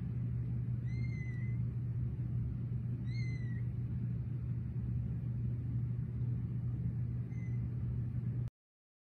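Very young kittens mewing: three short, high-pitched mews, about a second in, about three seconds in, and a faint one near the end, over a steady low hum. The sound cuts off suddenly shortly before the end.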